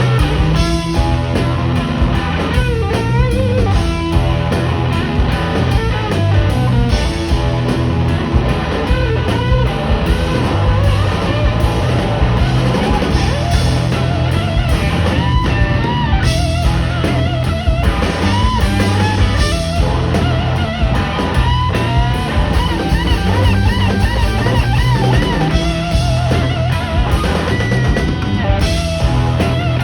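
Live rock band playing an instrumental passage: electric guitar lead with bent, wavering notes over drum kit and bass.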